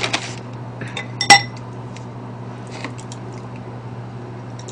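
A metal spoon clinks sharply once against a ceramic bowl about a second in, ringing briefly, with a few lighter taps of cutlery on dishes around it.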